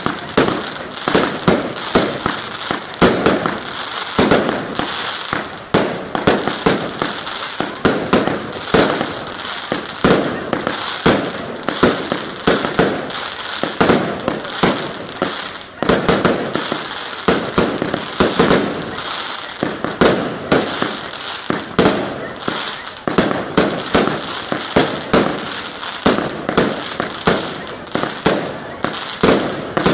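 Pirotecnica Fucito aerial fireworks display: a dense, unbroken barrage of shell bursts and bangs, several a second.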